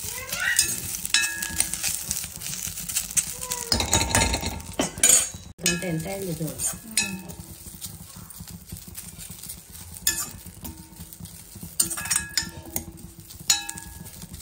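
Metal spatula scraping and clicking against a stainless steel pan as moringa leaves are stirred and roasted, in an irregular run of strokes, with a heavier bump about four seconds in.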